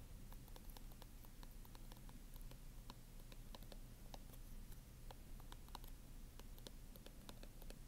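Faint, irregular clicks of a stylus tapping and sliding on a tablet's glass screen as words are handwritten, over a low steady hum.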